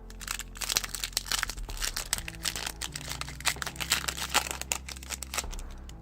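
Foil Pokémon booster pack wrapper crinkling and tearing as it is opened, with a dense run of irregular crackles.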